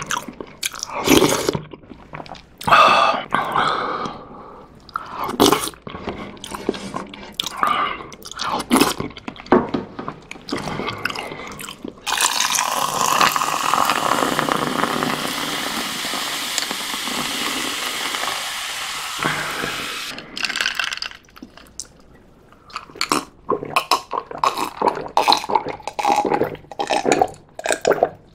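Close-miked slurping of ramyeon broth from a spoon and chewing, then water poured in a steady stream into a glass for about eight seconds, followed by gulps of water near the end.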